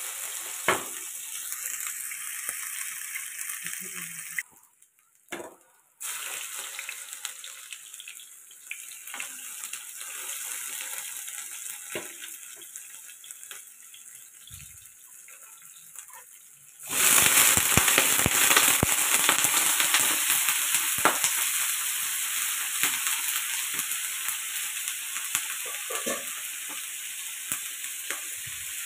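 Cauliflower and shrimp stir-frying in hot oil: a steady sizzle with the taps and scrapes of a spatula stirring. It breaks off briefly about four seconds in and turns much louder about seventeen seconds in.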